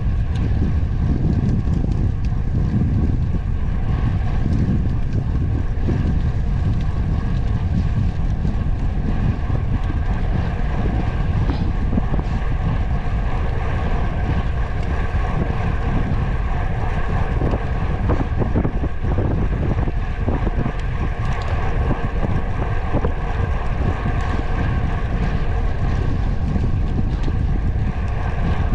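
Steady rush of wind over the microphone together with road noise from a moving ride, unbroken throughout, with faint steady tones underneath.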